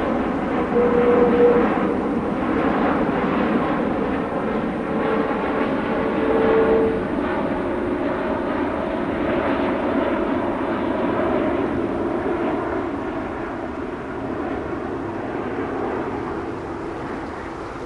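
Jet engines of an arriving Airbus A330 airliner: a steady loud rush with a faint whine, slowly fading away in the last few seconds.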